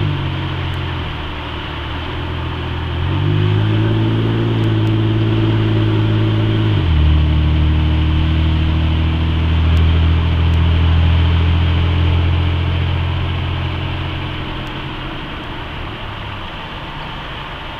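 Cabin sound of a 1997 Buick LeSabre's 3.8-litre V6 on the move, with steady road and tyre noise. The engine note falls at the start and climbs again about three seconds in. It drops sharply about seven seconds in as the automatic gearbox shifts up, holds steady, then eases off near the end.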